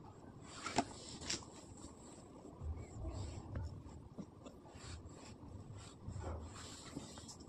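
Faint rustling and rubbing of macramé cords pulled by hand and looped around a wooden stick, with a couple of light clicks about a second in.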